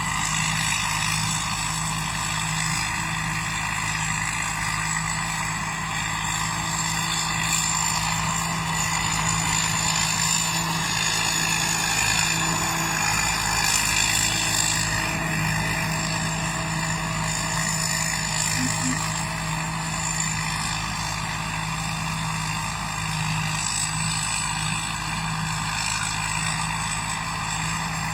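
Combine harvester running steadily, a constant machine drone with a high steady whine over it.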